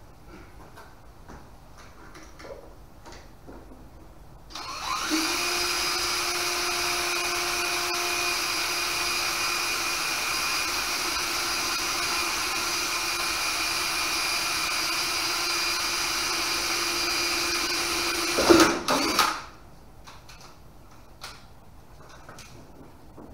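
Power drill running at a steady pitch for about fourteen seconds while drilling stitch holes through the plywood panels of a stitch-and-glue skiff hull. It ends in a brief louder burst as it stops. Faint knocks of handling come before and after.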